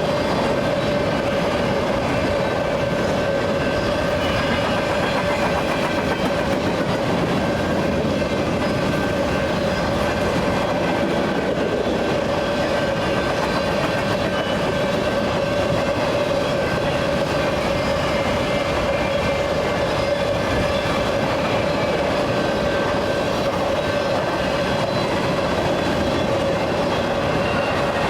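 A freight train's cars rolling past at a steady speed, with a constant level and a steady ringing tone above the rolling noise.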